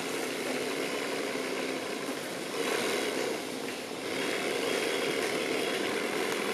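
The 3D-printed hydraulic pump of a 1/16-scale model excavator running with a steady hum. It grows louder in two stretches, then cuts off suddenly near the end.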